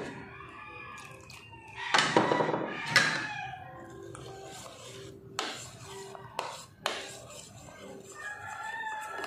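A rooster crows loudly about two seconds in and again faintly near the end, while a metal spoon stirs pancake batter in a bowl, knocking sharply against it a few times in the middle.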